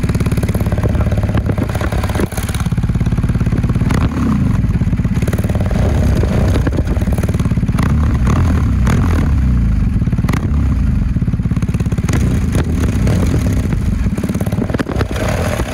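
BMW R 1250 GS boxer twin running through a Jekill and Hyde Nomad valved exhaust, heard close at the twin-outlet silencer, with the throttle blipped several times so the pitch rises and falls. A few sharp pops or clicks come through between the revs.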